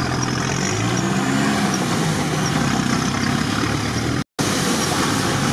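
Off-road vehicle's engine running steadily under way, heard from inside the cab, with tyre and body noise over it. The sound cuts out completely for a moment about four seconds in.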